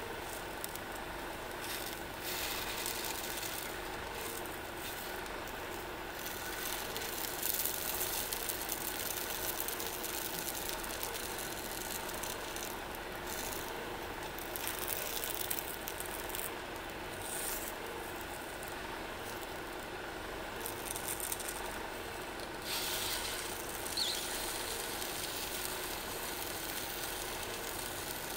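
Single-burner stove on a screw-on gas canister burning under a small pan of takoyaki: a steady hiss, with flurries of sizzling now and then as the balls are turned with chopsticks.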